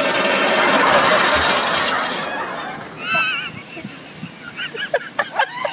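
A loud rushing noise for about two seconds, then high-pitched giggling and laughter in short bursts.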